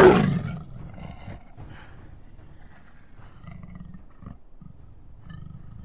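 A panther's roar, a big-cat roar sound effect, loudest right at the start and falling away within about a second, after which only faint low background sound remains.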